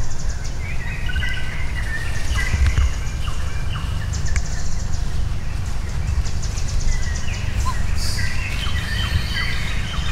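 Forest birds chirping and calling, many short chirps and whistles, with a rapid high trill that repeats about every two seconds, over a steady low rumble.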